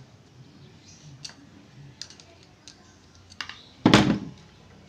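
Small sharp clicks and taps of a screwdriver and metal screws as an airgun's stock is taken off, with a louder knock about four seconds in.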